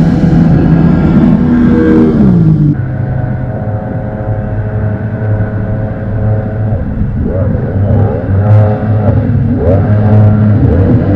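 Racing jet boat engines. The boat that has just passed under the bridge drops sharply in pitch about two seconds in as it speeds away, and the sound falls off. A second racing jet boat's engine carries on, quieter, its pitch rising and falling over and over as it comes up the river toward the bridge.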